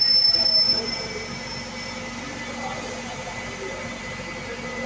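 A high-pitched squeal, likely bus brakes, is loudest in the first second and fades out by about two seconds in. Under it runs a steady low hum of bus engines.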